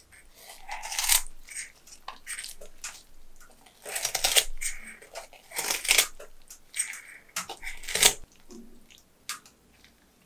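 Kitchen scissors snipping through a whole head of napa cabbage kimchi, with crisp, wet crunching and tearing as the seasoned leaves are cut and pulled apart by gloved hands, in a handful of separate bursts that die away near the end.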